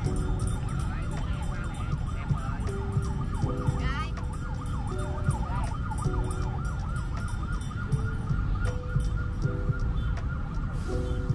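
Electronic siren tone warbling up and down about three or four times a second, with short runs of lower electronic notes between. Steady low rumble of city traffic underneath.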